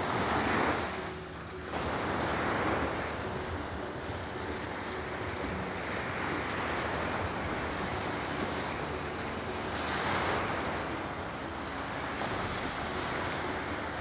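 Small waves breaking and washing up a sandy beach: a steady surf hiss that swells briefly about half a second in, again around two and a half seconds, and again about ten seconds in, with some wind on the microphone.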